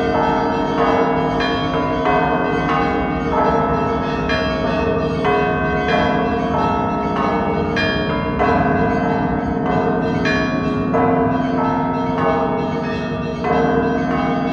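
Russian Orthodox monastery bells ringing in a full peal (zvon): small and mid-sized bells struck in a fast, overlapping pattern over the steady hum of a large bell, each stroke ringing on.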